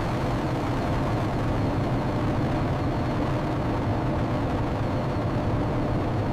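Steady engine rumble: a constant, even noise with a faint tone running through it that does not change.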